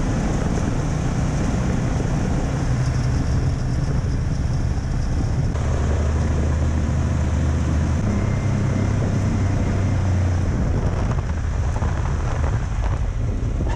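Ski-Doo Grand Touring 600 snowmobile engine running steadily while the sled is ridden over snow, with wind rushing on the microphone.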